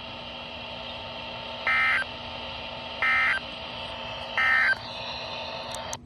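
A Midland weather radio's speaker, tuned to NOAA Weather Radio, sends the EAS end-of-message data code after a severe thunderstorm warning. It is three short, shrill digital data bursts about a second and a half apart, over a steady hiss and low hum from the radio. A faint click comes near the end.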